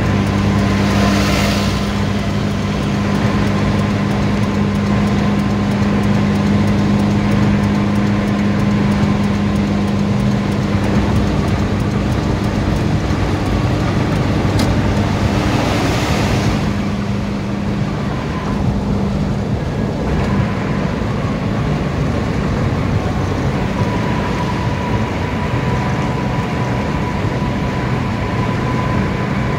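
Steady tyre and engine noise inside a car's cabin cruising on a concrete highway, with a low drone. The noise swells and fades as the car overtakes a truck about a second in and a fuel tanker truck around fifteen seconds in.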